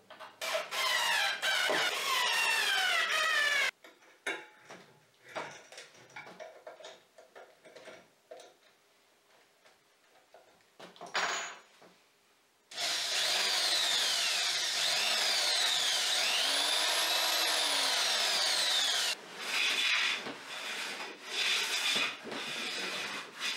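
Cordless drill spinning a threaded steel shaft in its pillow-block bearings, in two runs with the pitch sliding up and down and light clicks of handling between them. Near the end, several strokes of a hand tool along a wooden board.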